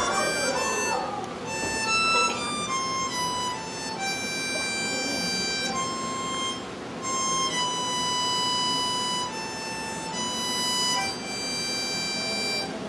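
A single wind instrument playing a slow melody of long held notes, one note at a time.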